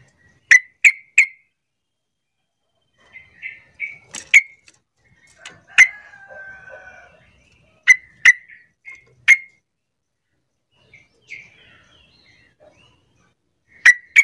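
Yellow-vented bulbul (trucukan) calling: loud, sharp, very short call notes, several in quick runs of two or three, with softer chattering phrases in between. Given as a female's call to draw males and set other bulbuls answering.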